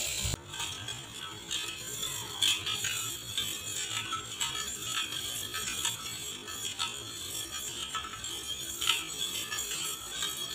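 Spoon stirring sugar into water in a steel bowl, with scattered scrapes and clinks against the metal sides. Background music plays.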